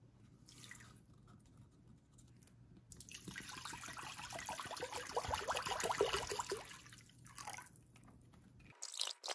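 Water poured from a plastic bottle into a glass mixing bowl over sugar and salt, splashing steadily for about four seconds, starting about three seconds in.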